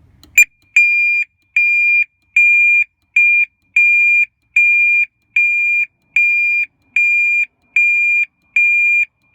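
BMW X5 factory alarm siren going off in alarm mode, set off by the bonnet switch on an armed car: a sharp click, then a loud, steady high-pitched beep about half a second long, repeating about every 0.8 seconds.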